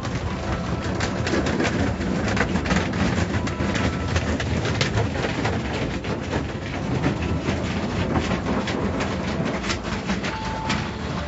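Car wash running: a steady rushing, rumbling noise thick with irregular clicks and knocks.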